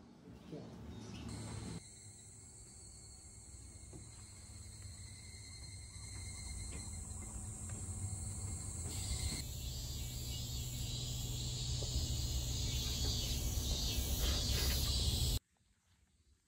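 A chorus of insects droning steadily with a high, hissing shrill over a low rumble. It grows gradually louder, then cuts off abruptly about a second before the end.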